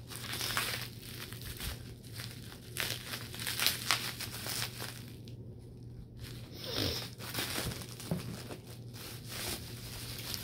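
Clear bubble wrap crinkling and rustling as it is pulled open and unwrapped by hand, in irregular bouts with a short pause about five seconds in.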